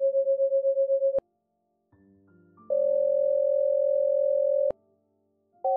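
Computer-generated sine tones, each the sum of two sine waves. First a tone of 540 and 548 Hz pulsing in loudness about eight times a second, which stops with a click about a second in. After a gap, a two-second tone of 540 and 583 Hz with a fast flutter, also ending in a click; right at the end a new pair of 540 and 758 Hz starts, heard as two separate pitches.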